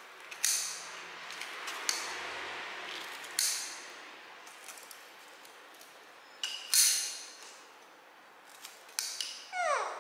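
Metal kitchen scissors snipping pieces of banana cake: a run of sharp clicks of the blades closing, spaced a second or more apart, the loudest about two thirds of the way in. A short falling squeak sounds just before the end.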